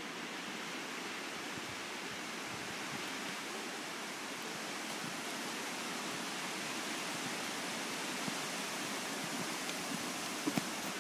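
Steady outdoor hiss of wind and rustling, with two sharp knocks about ten and a half seconds in.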